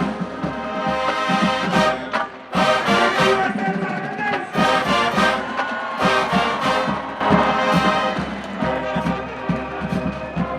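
Marching band playing: brass chords from trumpets and trombones over drum strokes.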